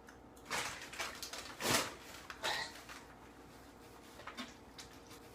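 Paper sandwich wrapper crinkling as a fast-food chicken sandwich is handled, a few sharp rustling bursts in the first few seconds, then only faint light ticks.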